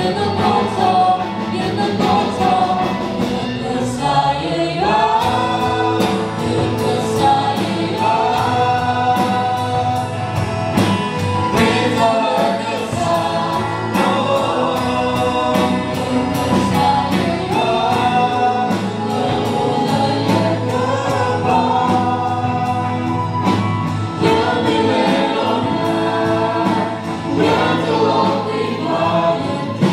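Worship song performed by several singers on microphones with a live band, voices held over a steady drum beat.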